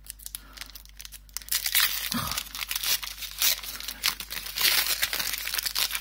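Foil wrapper of a Pokémon trading-card booster pack crinkling and tearing as it is worked open by hand. It is faint at first, then crinkles densely from about two seconds in.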